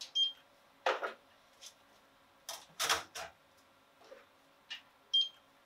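A handheld barcode scanner gives a short high beep twice, once at the start and again about five seconds in, each signalling a barcode read off a component reel label. Between the beeps, plastic component reels are handled and set down in a few sharp clicks and knocks.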